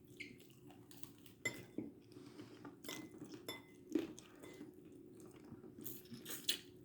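Cutlery and dishes clinking and tapping now and then: short, light knocks at irregular intervals over a faint steady hum.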